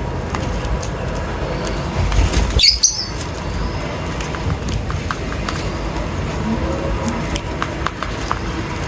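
Outdoor background noise with a steady low rumble, and a short, loud bird squawk about two and a half seconds in, with scattered faint chirps and clicks.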